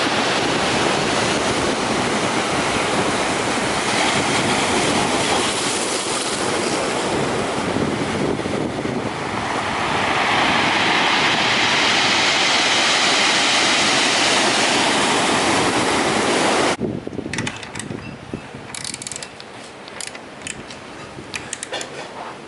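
A loud, steady rushing noise that starts suddenly, grows brighter about ten seconds in, and cuts off abruptly after about seventeen seconds, followed by light clicking and clattering.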